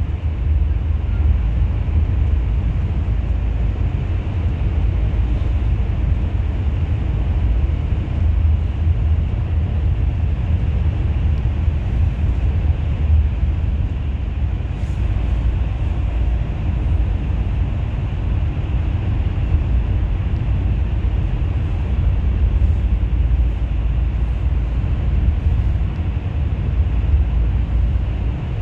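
Steady ride noise inside a moving bus: a constant low engine and road rumble.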